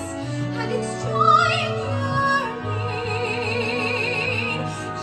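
A woman singing in a trained musical-theatre voice, with wide vibrato on long held notes and a rising glide about a second and a half in.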